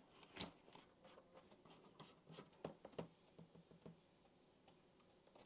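Near silence broken by a few faint taps and clicks from a 2012 MacBook Pro 15-inch's aluminium case being handled as its display lid is folded shut.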